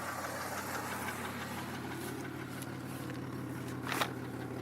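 2002 Chevy Malibu engine idling steadily, with a short burst of noise about four seconds in.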